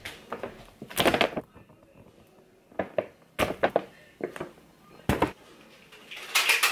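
A large plastic bag of Serious Mass weight-gainer powder being handled and crinkling, with a few handling thumps, in several short bursts, the loudest near the end.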